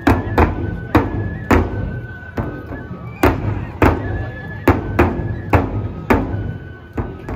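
Nebuta festival music: large taiko drums on the float struck in a heavy, uneven pattern of single and paired beats, with a high bamboo flute playing long held notes over them.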